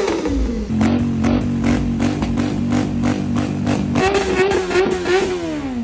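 Motorcycle engine held at steady revs, then revved higher about four seconds in and falling back.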